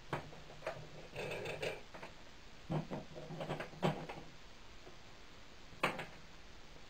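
Electric sewing machine stitching for about the first second and a half, back-stitching to finish the seam, then stopping. It is followed by scattered clicks and handling noise as the fabric is drawn out from under the presser foot, with one sharp click near the end.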